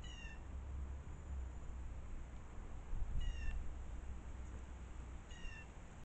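Three short mewing calls, each about a third of a second and falling slightly in pitch, near the start, in the middle and near the end, over a steady hiss of rain and a low rumble.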